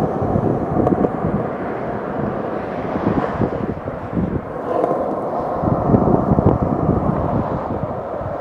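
Skateboard wheels rolling over a concrete skate park surface: a steady, rough rumble with a few light clicks as the wheels cross the joints in the slab.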